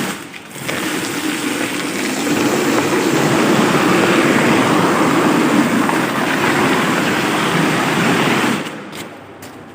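Weima 12 hp air-cooled single-cylinder diesel engine revved up to high speed about a second in and run hard and loud for several seconds, then throttled back near the end.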